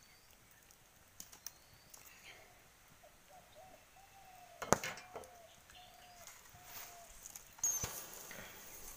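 Open wood fire crackling faintly, with a few sharp pops, the loudest about halfway through, over faint bird chirps.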